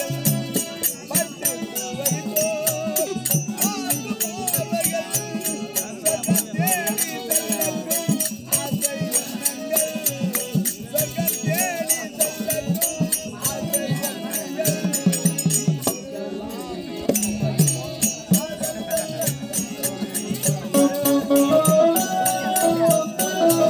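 Live Tamil street-theatre folk music: a barrel drum and percussion beat a fast, busy rhythm under a wavering melody line, with harmonium holding steady notes near the end.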